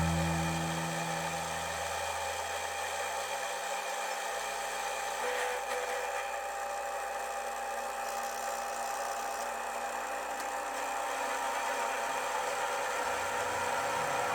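A metalworking machine running steadily with a high, even whine, as a tool is worked in metal.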